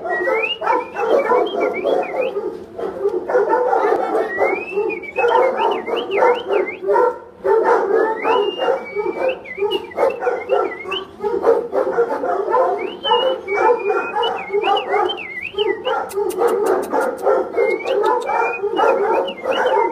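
Dogs barking over and over, with high, wavering whines among the barks.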